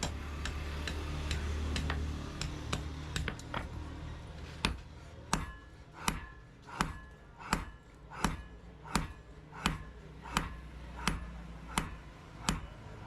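Blacksmith's hand hammer striking steel on an anvil in a steady rhythm, about one ringing blow every 0.7 seconds, starting about four seconds in. Before the blows, a low hum with light, quick taps.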